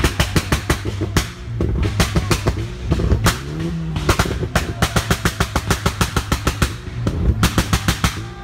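VW Jetta Mk2 GTI 2.0 8V engine held on a launch-control rev limiter, its exhaust firing rapid bangs and pops in volleys of about eight a second with short pauses between.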